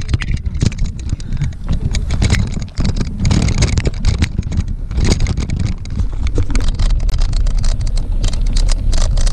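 Mountain bike riding over rough trail: a steady low wind rumble on the action camera's microphone, with many sharp clicks and knocks from the bike rattling.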